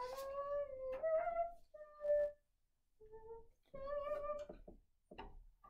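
A girl humming a tune in short held notes that step up and down, with a few soft paper rustles near the end.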